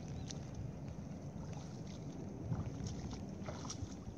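Steady low rumble of wind buffeting the microphone in open country, with a few faint short clicks and splashes from walking through shallow water.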